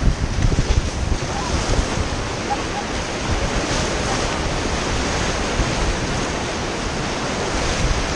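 Rushing river water around a paddled raft, a steady loud wash, with wind buffeting the microphone in uneven low gusts.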